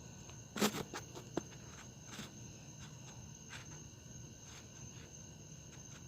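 A few sharp metal clicks and knocks from a hand wrench working a nut onto a truck's control arm, the loudest cluster about half a second in and softer single clicks after. A steady high-pitched tone runs behind.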